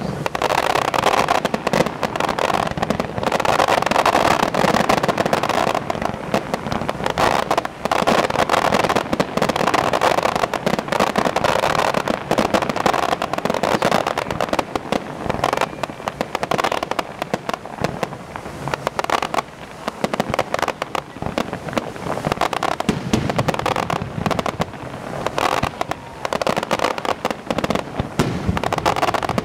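Fireworks display: a continuous barrage of rapid bangs and crackling from aerial shells and fountains, with no pause.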